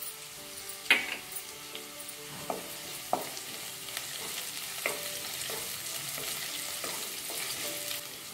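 Sliced onions and chopped mint sizzling in hot oil in a kadhai, stirred with a wooden spatula that knocks against the pan several times.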